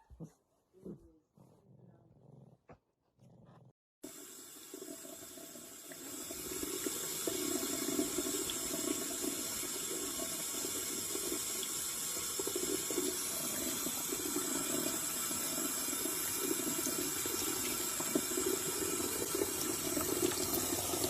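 Steady rush of running water, like a tap running. It starts abruptly about four seconds in after a few faint small sounds and grows louder a couple of seconds later.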